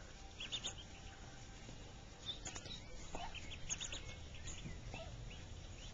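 Mallard ducklings peeping, short high-pitched peeps in quick runs, while they feed on grain.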